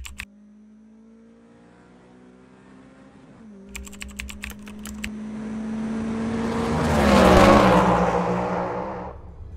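Racing car engine approaching and passing by: it grows louder to a peak about seven and a half seconds in, its pitch drops as it passes, and it fades away. A burst of rapid typing clicks comes about four seconds in.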